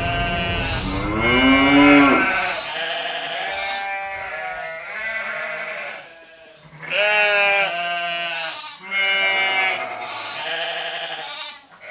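Several sheep bleating, overlapping quavering calls at different pitches, with a short lull about six seconds in.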